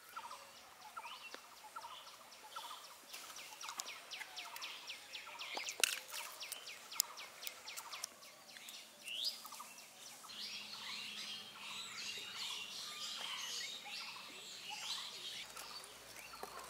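Birds chirping and calling, with a fast ticking trill in the first half and a busier chorus of short chirps in the second half. Two sharp clicks stand out near the middle.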